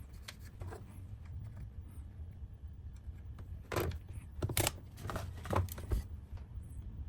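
A few short clicks and scraping rustles, like parts or tools being handled on a workbench, over a steady low hum. The loudest come about four seconds and five and a half seconds in.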